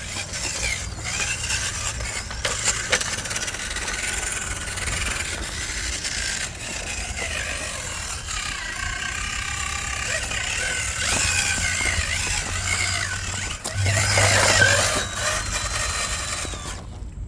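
Small electric motor of a 1/10-scale RC rock crawler whining, its pitch rising and falling with the throttle as the truck crawls over the course. The loudest stretch comes near the end.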